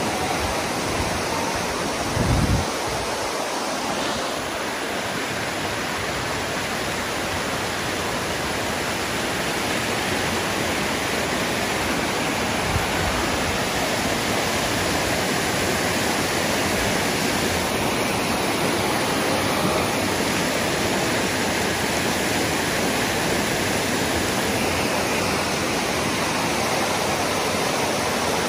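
Shallow water of Dunn's River Falls rushing and splashing steadily over the broad rock shelves of its terraced cascade. A brief low thump comes about two seconds in.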